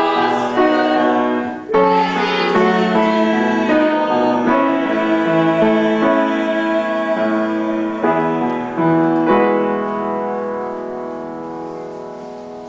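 Small group of amateur voices singing a worship song with piano accompaniment, ending on a long held final chord that fades away over the last few seconds.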